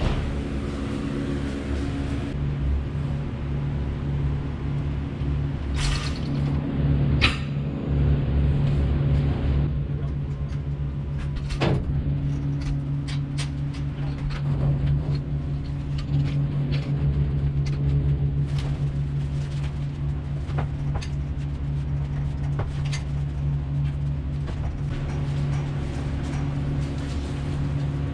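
An engine idling steadily, with scattered knocks and clanks over it, several sharp ones between about six and twelve seconds in.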